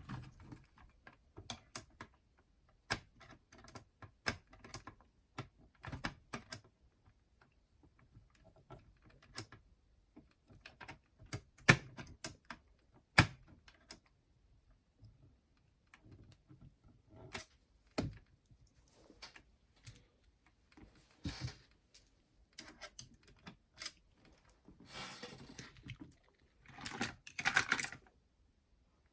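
Scattered small clicks and taps from a screwdriver and plastic parts while screws are taken out of a clock radio/cassette player's plastic housing, with a couple of short scraping rustles near the end.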